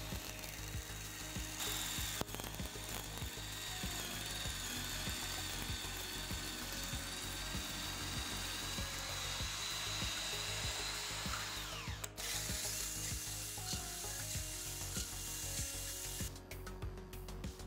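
Cordless drill spinning a wooden dowel through a hole in a steel plate, shaving it round. The motor whines steadily, winds down about twelve seconds in, then starts again. Near the end the spinning dowel is sanded with sandpaper.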